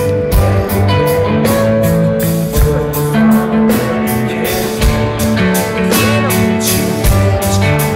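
Live rock band playing, with electric and acoustic guitars, keyboard and a drum kit keeping a steady beat of cymbal hits.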